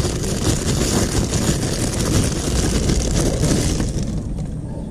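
Plastic bag crinkling and rustling as it is handled, over a low rumble; the crinkling dies down near the end.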